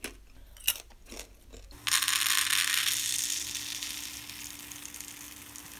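Dried popcorn kernels pouring from a plastic bag into a measuring cup: a dense rattling that starts suddenly about two seconds in and slowly tapers off. A few sharp clicks come before it.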